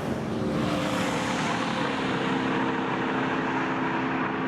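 Steady engine drone with a few held tones, shifting slightly about two seconds in.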